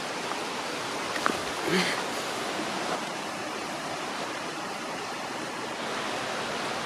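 Steady rushing of a nearby stream. About a second and a half in there is a short click, followed by a brief vocal sound.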